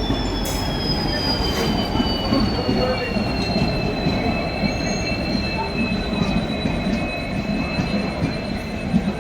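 Passenger train pulling into a station: a steady rumble of the coaches, with a high two-tone squeal from the braking train that slowly falls in pitch.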